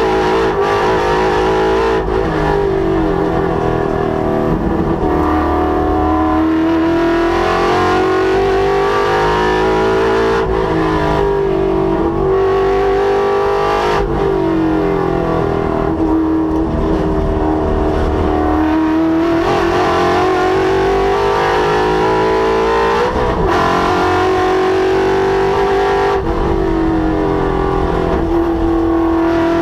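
Ford Mustang's Coyote 5.0 V8 at full throttle on a race track, its engine note climbing under hard acceleration and dropping away under braking and gear changes, over and over.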